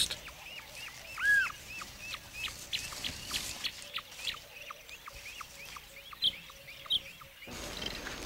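A bird giving a rapid series of short, high chirps, several a second, with one lower, louder call about a second in. The calling cuts off suddenly about seven and a half seconds in.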